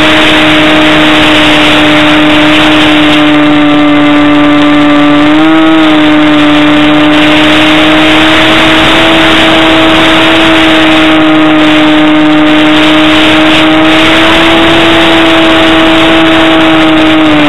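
Motor and propeller of an RC model DG1000 glider, heard loud from a camera mounted on the plane. It makes a steady drone with a whine above it, over rushing wind noise, and the pitch lifts briefly about five seconds in.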